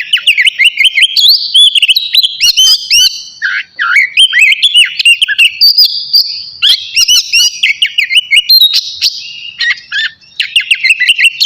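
Oriental magpie-robin (kacer) singing loudly: a rapid, varied run of whistled phrases and chirps, with short breaks about 4 seconds in and near 10 seconds.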